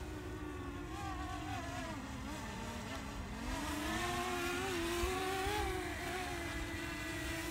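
DJI Mini 2 drone's propellers whining in flight, the pitch wavering up and down as the motors adjust. The whine swells a little from about halfway through, then eases back.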